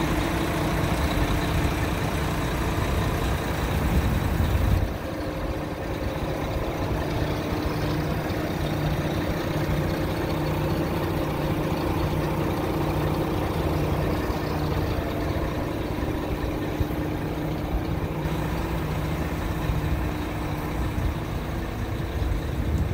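Diesel engine of a Renault Lander 460 truck idling steadily with an even hum. Its deepest rumble falls off about five seconds in.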